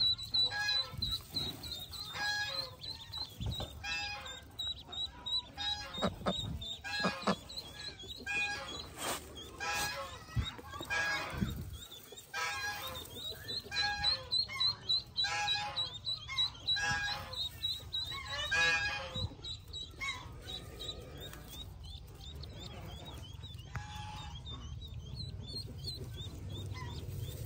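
A brood of Pekin ducklings peeping constantly in a high, rapid chorus, with an adult Pekin duck giving repeated loud, honking quacks that thin out about two-thirds of the way through.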